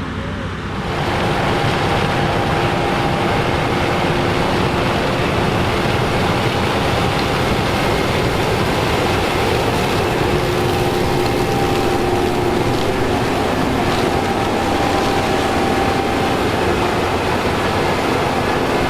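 Case IH AF10 combine harvesting corn: its 15.9-litre engine and threshing machinery run steadily as a loud, even rush with a steady whine over it. The sound comes in abruptly about a second in.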